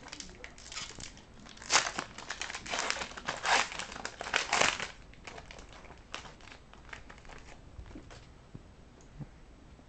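Foil trading-card pack wrapper being torn open and crinkled by hand, a dense crackling for about five seconds, then only faint rustles and clicks as the cards are handled.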